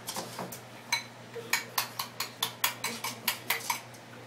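A spoon clinking against a dish as the dog's food is dished up: a quick run of sharp, ringing clinks, about five a second, that stops shortly before the end.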